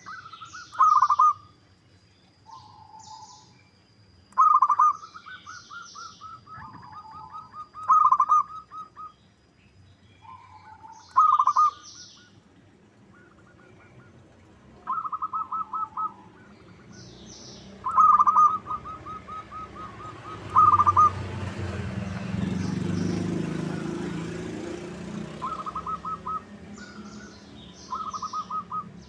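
Zebra dove (perkutut) cooing: about eight loud phrases, each a quick run of pulsed coos, with small birds chirping faintly higher up. A low rushing noise swells in the second half and fades again.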